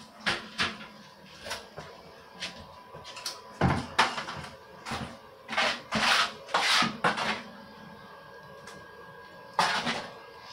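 Tiling work: a string of sharp knocks and clacks, with a few short scraping strokes clustered around the middle.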